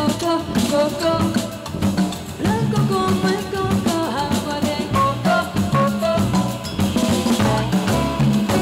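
Live band playing a Latin jazz song: nylon-string classical guitar with drum kit and hand percussion, and a woman singing.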